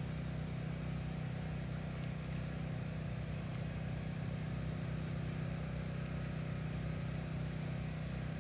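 Steady low hum of a running vehicle engine, even throughout, with a few faint ticks over it.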